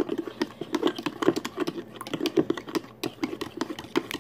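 Metal spoon stirring in a plastic cup, clicking and scraping against the sides in a fast, uneven run of light clicks.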